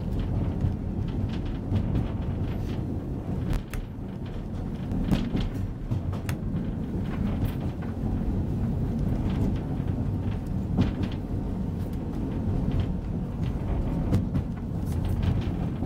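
Narrow-gauge train running along the track: a steady low rumble of wheels on rails, with scattered clicks and knocks.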